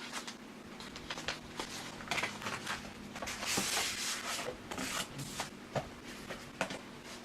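Cardboard and paper packaging being handled: scattered light taps and clicks with a denser rustle about three to four seconds in, over a faint steady hum.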